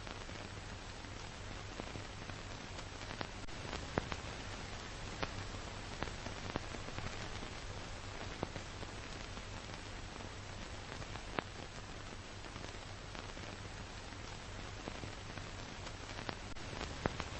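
Steady hiss with a low hum and scattered sharp clicks and pops: the surface noise of an old film soundtrack, with no other sound on it.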